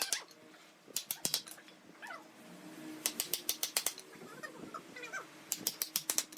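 Three quick runs of sharp taps or clicks, several to a run, with faint short chirping calls in between.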